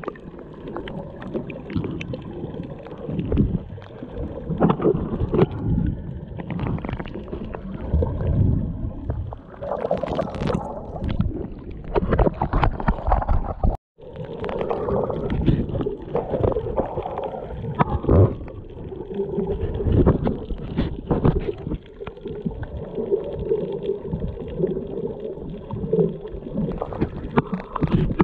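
Muffled underwater water noise picked up by a GoPro camera held below the surface: irregular gurgling and sloshing with low rumbling and occasional knocks, cut off very briefly about halfway through.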